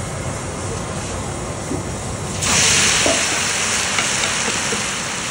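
Food frying in a large pan over a steady hiss, then a loud sizzle flares up suddenly about two and a half seconds in and slowly dies down, typical of wet ingredients hitting hot oil.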